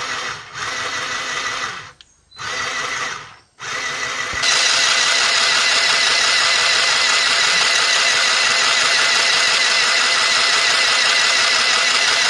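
Mini electric sewing machine's small motor winding thread onto a bobbin: it whirs in two short runs with brief stops, then runs steadily and louder from about four seconds in.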